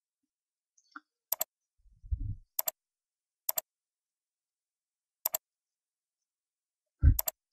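Computer mouse clicking about five times at uneven intervals, each click a quick double tick of press and release, as lines are erased one by one; a short low thump falls about two seconds in.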